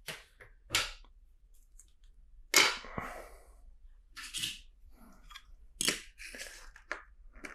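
Plastic LEGO bricks and track pieces clicking and clattering as they are handled and pressed together, in irregular sharp clicks, the loudest about two and a half seconds in.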